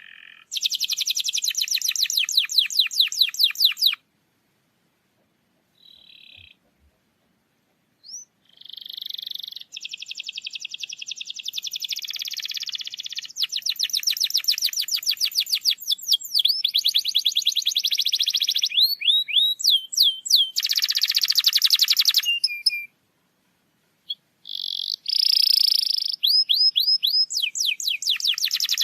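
Domestic canary singing: long, fast rolling trills of high repeated notes, broken by a few seconds' pause about four seconds in and a short one near the end, with runs of quick sliding whistles in between.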